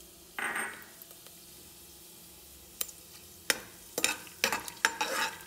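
Whole spices (bay leaves, cinnamon, cloves) sizzling faintly in hot oil in a pressure cooker, with a short louder hiss about half a second in. From about three and a half seconds in, a metal spoon stirring them, scraping and clicking against the pot.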